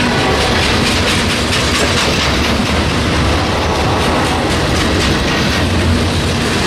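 Norfolk Southern mixed freight train of tank cars and covered hoppers rolling past at close range: a loud, steady rumble with the clatter of steel wheels over the rail joints.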